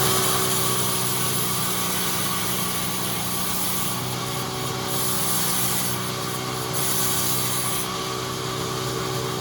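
Sawmill saw running with a steady machine hum, while a high hiss from cutting wood starts and stops several times.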